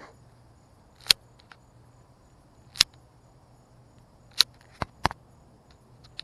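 A person slapping at mosquitoes on their own skin: a series of sharp slaps, four loud ones roughly a second and a half apart, with a lighter one just before the last.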